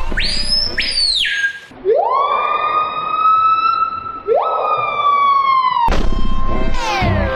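Siren-like wailing: a high whistling tone in the first second or so, then two long wails that each sweep up and hold before breaking off, the second starting a little past the middle.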